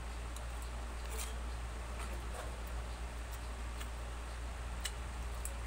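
Eating sounds: chewing and scattered small clicks of a plastic spoon and fork, over a steady low hum.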